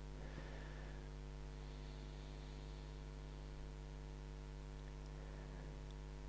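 Steady low electrical mains hum, buzzy with many evenly spaced tones, over a faint hiss.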